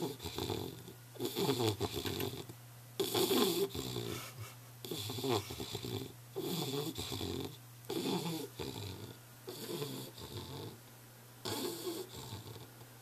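English bulldog snoring: a steady rhythm of snores, one about every one and a half seconds, each lasting about a second.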